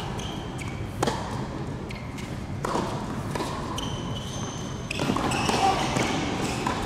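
Tennis ball bounced on a hard court twice before a serve, then a racket striking the serve about five seconds in, over voices in a large hall.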